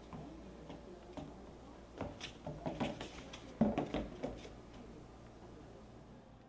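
A cat shuffling and pawing inside a cardboard box: a scatter of light scrapes and knocks on the cardboard, the loudest a little past the middle.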